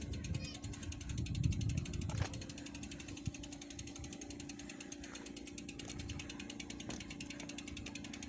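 Bicycle freewheel ticking rapidly and evenly as the bike coasts, over a low rumble.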